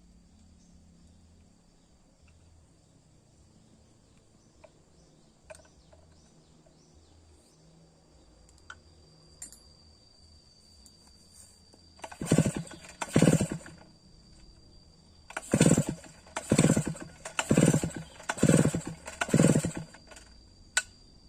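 Two-stroke Stihl 070 chainsaw being pull-started again and again: seven short bursts of cranking, two and then five about a second apart, with the engine not catching. Crickets chirp steadily behind it.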